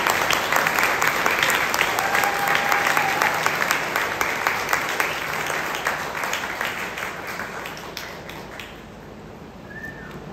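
Audience applauding, the clapping dying away about eight or nine seconds in.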